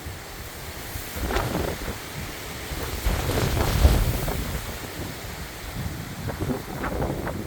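Wind blowing in gusts and buffeting the microphone with a low rumble. It swells about a second in and more strongly around three to four seconds in.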